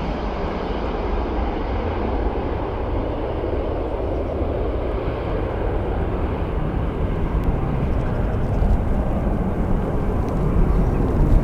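Jet airliner's engines, a steady rumble that grows louder toward the end, as the plane comes in to land.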